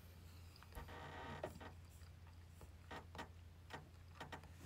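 Faint eating sounds: a few small, scattered clicks of a spoon and chopsticks against a rice bowl, over a low steady hum.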